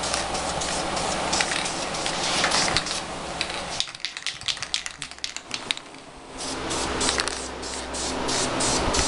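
Aerosol spray can hissing in short repeated bursts as black paint is misted onto a car side mirror as a first light mist coat. The hissing stops for about two seconds in the middle, where only a few clicks are heard, then starts again.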